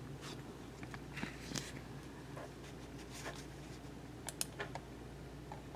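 Faint, scattered clicks of a computer mouse scrolling down a web page, over a low steady hum.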